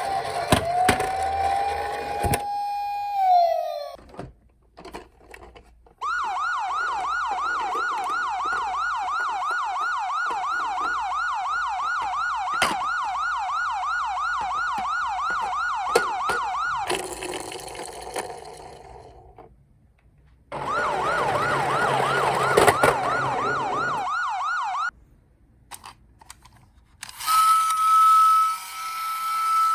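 Police-car siren: a slow wail glide at first, then a rapid yelp cycling for about ten seconds. It stops, returns for a few seconds, and gives way to a steady high tone near the end. Light clicks and knocks fill the gaps between.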